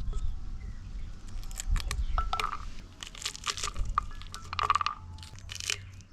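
Crunching, cracking and tearing: fruit being cut and broken open by hand while being readied for juicing, a rapid run of sharp crackles with a few short squeaks.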